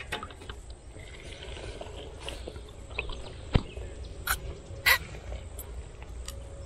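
Handling noises: scattered short, sharp clicks and taps, with one lower knock about three and a half seconds in, over a quiet outdoor background.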